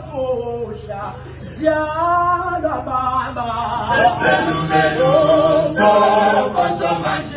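Male choir singing a cappella, several voices in harmony with no instruments. The singing dips briefly about a second in, then comes back fuller and louder.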